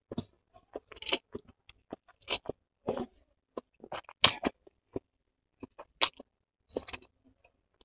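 Close-up mouth sounds of eating stir-fried vegetable chowmein: noodles slurped in and chewed, with wet smacks and clicks coming irregularly, the loudest about four seconds in and again about six seconds in.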